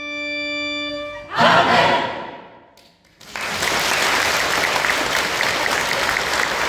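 Choir with violins holding a final 'Amen' chord that ends about a second in, followed by a brief loud burst of sound that fades to a short hush, then audience applause, steady from about halfway on.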